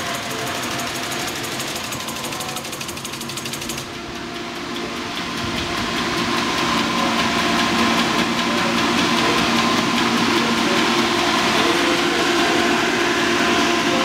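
Pump motors of a FuelMatic biodiesel processor running with a steady mechanical hum that grows louder about four to six seconds in. A fast, high ticking stops about four seconds in.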